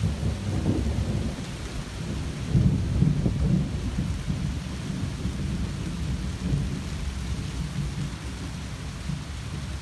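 Steady rain falling, with a low roll of thunder that swells about two and a half seconds in and then slowly dies away.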